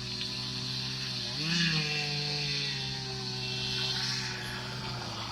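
Two-stroke chainsaw engine running steadily, revved up and back down briefly about a second and a half in.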